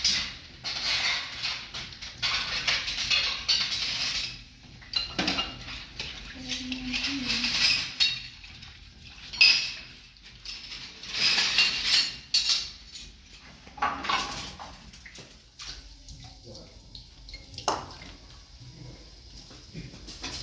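Kitchenware being handled: irregular clinks and scrapes of pots, dishes and utensils, coming in bursts.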